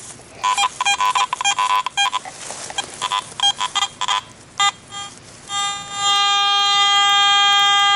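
Garrett AT Gold metal detector sounding as it is swept over the ground: a run of short, irregular beeps, then a steady held tone from about five and a half seconds in that cuts off sharply near the end.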